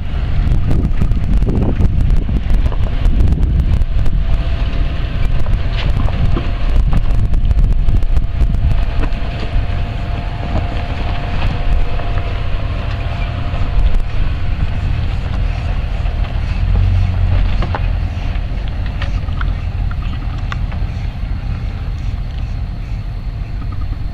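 4x4 SUV engines, a Jeep Cherokee and a Land Rover Discovery, running at low speed as they crawl over a rocky trail, under heavy wind buffeting the microphone. A faint steady engine hum stands out in the middle, then fades toward the end.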